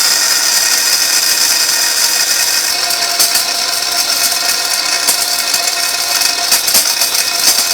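Electric spice grinder running at full speed, grinding hard dried amla: a loud steady whine, with hard pieces rattling and clattering inside from about three seconds in.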